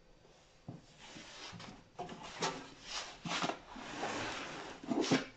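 A heavy metal-cased inverter being shifted and tilted in its cardboard box: cardboard scraping and rustling, with several dull knocks as the unit bumps against the box.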